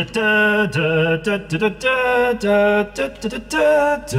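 Unaccompanied sung intro jingle: a single voice holding a string of long notes, each about half a second to a second, stepping between pitches.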